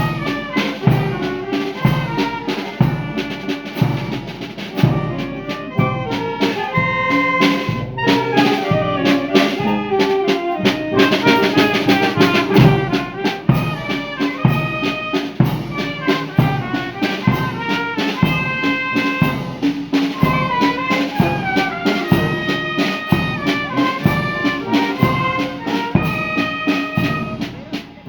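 Brass band with trumpets, trombones and drums playing a tune over a steady beat, with a brief lull near the end.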